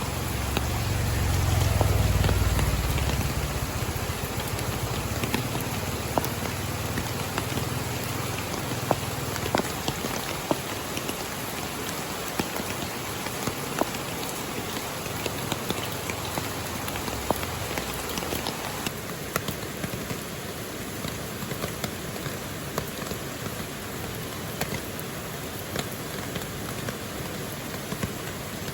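Steady rainfall, with a dense hiss and many individual drops ticking on a surface. A low rumble swells and fades away over the first few seconds.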